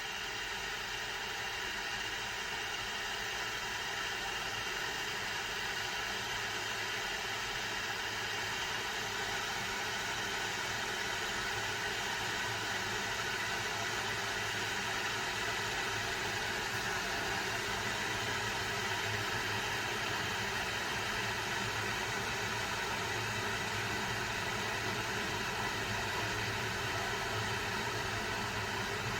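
Electric gooseneck kettle heating water: a steady rushing hiss with a low hum that slowly grows louder.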